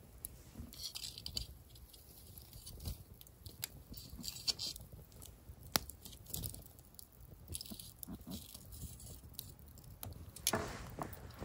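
Campfire crackling: scattered sharp pops and short hisses from the burning wood, with a louder rustling stretch near the end.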